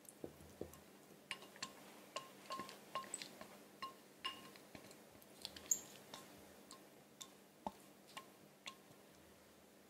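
Faint, irregular small clicks and clinks, each with a brief ring, about twenty of them, thinning out near the end.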